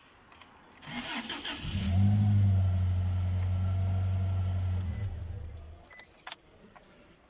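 A Toyota Hilux engine being started in a truck with a crank-no-start fault (codes P0335, crankshaft position sensor, and P0123, throttle position sensor). Cranking starts about a second in, then a steady engine hum runs for about three seconds before fading out.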